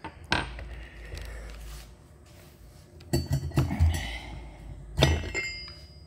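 Metal clinking as a new cast transmission pump for a John Deere 310J backhoe is worked off the hub of its torque converter: a few sharp metal-on-metal clinks spread through the seconds, the last ones about five seconds in ringing briefly.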